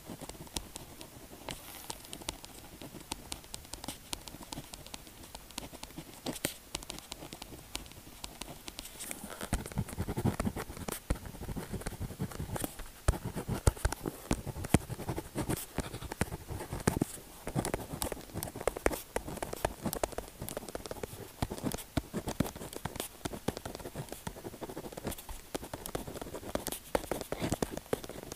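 Pen tip scratching and tapping on paper in quick, irregular strokes, close to the microphone. The strokes grow louder and fuller about a third of the way through.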